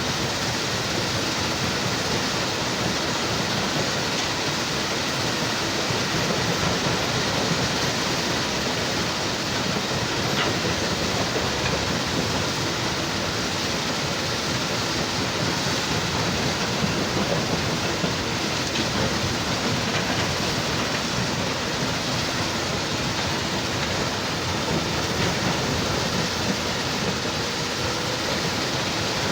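Steady, unbroken din of heavy machinery: an excavator working while a stone crusher runs, with no pauses or sudden impacts standing out.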